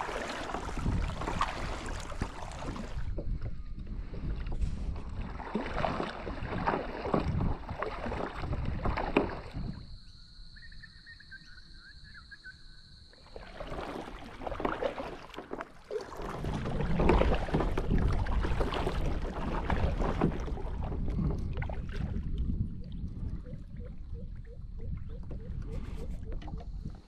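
Water lapping and splashing around a kayak, with wind rumbling on the microphone, in several abruptly cut segments; a quieter stretch comes about ten seconds in.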